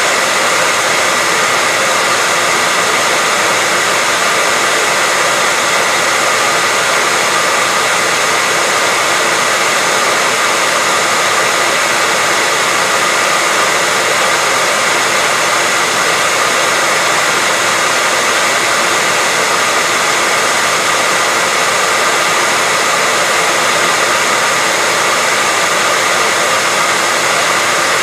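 Hair dryer running steadily: an even rush of blown air with a faint whine from its motor and fan, unchanging throughout.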